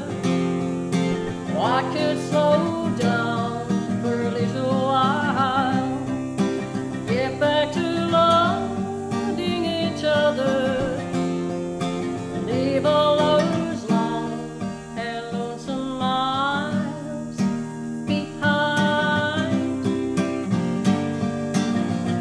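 A woman singing a folk song to her own strummed acoustic guitar. Her sung phrases waver with vibrato over steady strummed chords.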